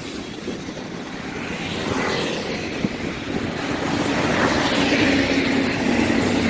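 Road traffic passing on a highway: vehicle engines and tyre noise, growing louder toward the end as a vehicle approaches.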